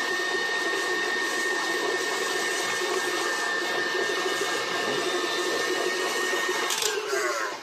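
KitchenAid Artisan stand mixer running at high speed, its dough hook beating cooked taro into a thick poi paste: a steady motor whine over the churning of the paste. Near the end the motor is switched off and winds down.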